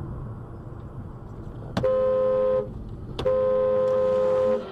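A car horn sounds twice, a short blast and then a longer one, over steady road and engine noise.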